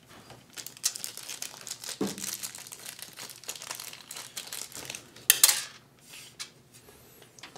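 Crinkling and rustling of plastic with scattered small clicks as motherboard screws are handled and dropped loosely into place, with a sharper rustle about five seconds in.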